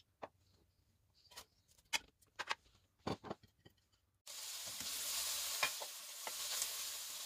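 A few light clicks of a metal spoon against a metal karahi, then, a little past halfway, the steady sizzle of sliced onions frying in hot oil starts suddenly, with the clink and scrape of the spoon stirring them.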